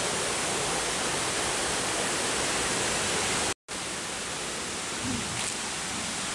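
Steady rushing of a waterfall, an even hiss of falling water. About three and a half seconds in it cuts out for a moment, then returns a little quieter.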